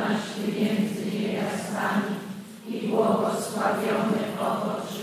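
Voices reciting a rosary prayer in Polish together in a steady, chant-like monotone, with a brief pause about two and a half seconds in.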